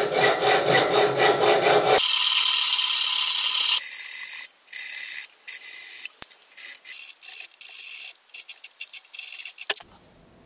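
Hand file rasping across a steel knife blade clamped in a bench vise, filing the bevel flat. Repeated strokes whose sound changes abruptly about two seconds in, then shorter strokes with gaps between them, stopping suddenly near the end.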